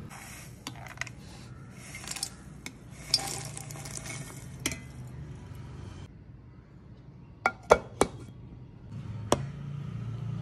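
Roasted cashews, peanuts and seeds scraped with a metal spatula from an iron kadai onto a steel plate, rattling and clinking against the metal. After that, four sharp metal clinks, a steel spoon knocking against a steel mixer jar.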